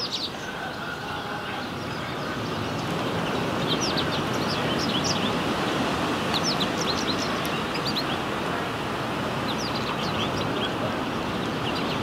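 Birds chirping, many short high calls in quick scattered clusters, over a steady rushing noise that swells through the middle and eases toward the end.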